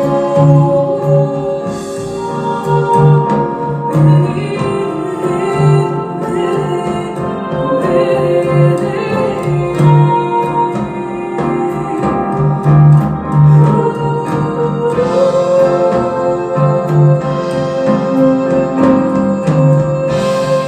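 Instrumental passage of a rock song with sustained organ and keyboard chords over a low note pulsing about once a second, played back through Wharfedale Diamond 220 bookshelf loudspeakers.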